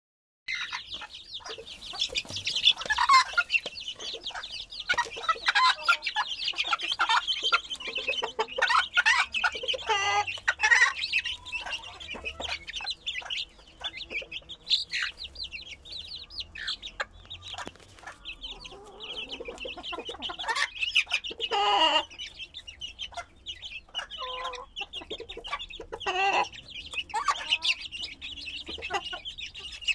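A hen and her brood of 50-day-old chicks: the chicks peep without pause in short, high chirps, and lower clucking calls break in now and then, about ten, twenty-one and twenty-six seconds in.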